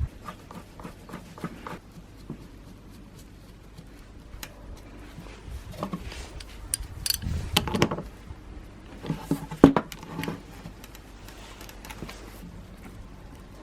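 Small metal and plastic parts and hand tools being handled at a workbench: scattered clicks, light knocks and rubbing, busiest and loudest from about six to ten seconds in.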